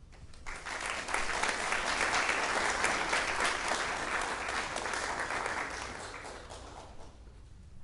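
Audience applauding: the clapping starts about half a second in, swells, then dies away near the end.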